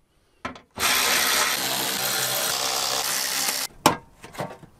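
A power tool with a T30 Torx socket runs steadily for about three seconds, backing out screws from the engine-bay shroud. A short click comes just before it, and a sharp knock just after it stops.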